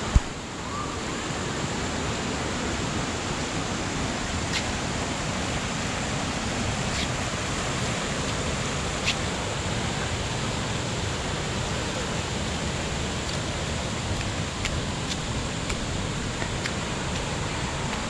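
Steady rush of a waterfall, with a few faint ticks.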